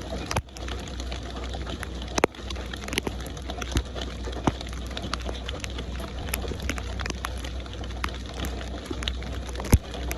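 Steady rain with many individual drops ticking on a surface, over a low steady rumble, and one sharp, louder drop near the end.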